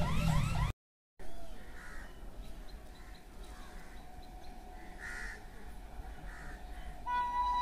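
Crows cawing a few times, separately, over a faint low background rumble, after a brief dead gap about a second in. Near the end a steady pitched tone with several overtones starts.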